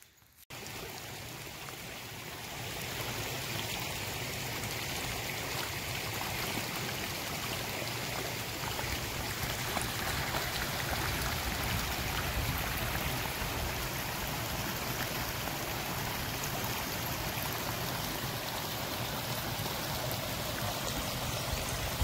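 Shallow stream running and babbling steadily over stones, with splashing from a dog wading through the water. It starts about half a second in and grows louder over the next couple of seconds.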